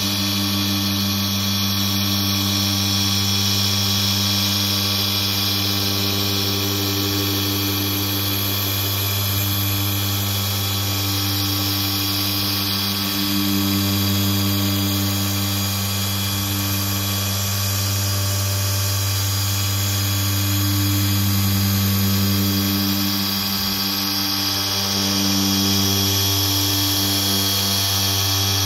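Cordless Ryobi dual-action polisher running steadily under load during a cutting pass with compound. A low, even motor hum with overtones, swelling slightly in loudness now and then.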